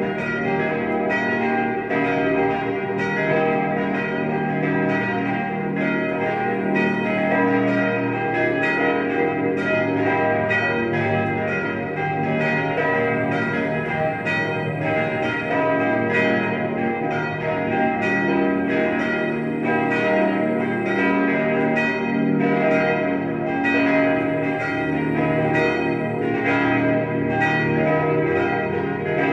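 Bronze church bells of St. Laurentius in Tittmoning, cast by Czudnochowsky of Erding, swinging and ringing together in a steady peal. Their strikes overlap irregularly over a continuous hum of ringing tones.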